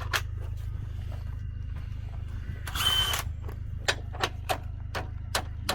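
A DeWalt 54 V cordless drill working a tight fastener. There is a short burst of the tool about three seconds in, then a run of sharp clicks at two or three a second, all over a steady low hum. The drill is failing to turn the fastener for lack of torque.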